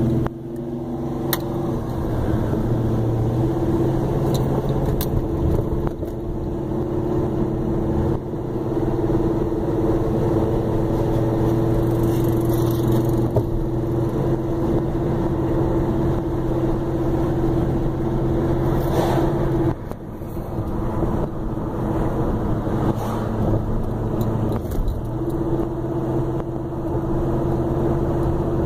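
Steady car engine drone with road and tyre noise, heard from inside a car driving close behind a 1968 Plymouth Road Runner. The engine drone drops away about 20 seconds in and comes back about five seconds later.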